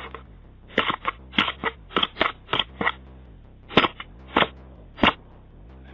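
A man taps on a doorbell camera: about eleven sharp, irregular taps in small clusters, the loudest nearly four and five seconds in.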